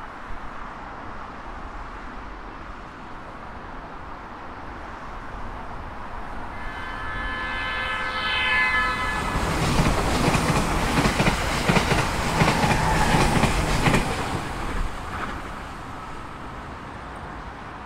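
JR Kyushu 787 series electric express train sounding its horn for about two seconds as it approaches. It then passes at speed, with a loud rumble and wheels clattering over the rail joints for about five seconds before fading away.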